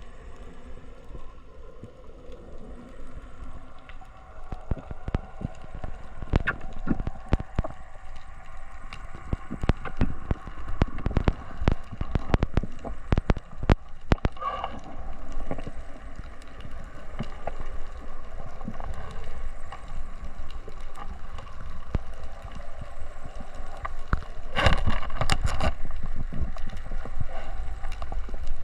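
Water gurgling and sloshing around a GoPro camera in its housing, with many sharp clicks and knocks scattered through. The knocks come thickest in the middle and again in a loud cluster near the end.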